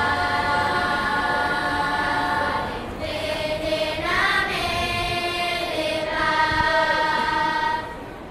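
Children's choir of the school singing unaccompanied in long held notes, in about three phrases, dropping away near the end.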